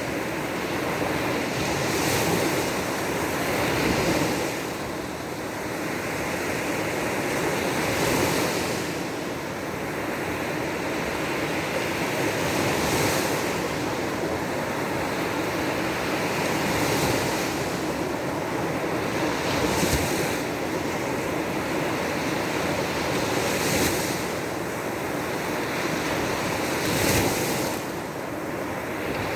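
Baltic Sea waves breaking on the shore: a continuous wash of surf that swells and falls every few seconds.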